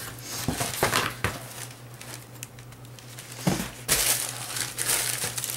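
Sneaker packaging being handled: crinkling and rustling of the wrapping, in a few bursts, with a longer and louder stretch in the second half.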